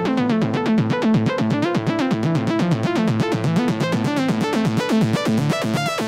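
Electronic dance music: a synthesizer arpeggio of rapid, even notes stepping up and down in a repeating pattern, with no kick drum or bass under it.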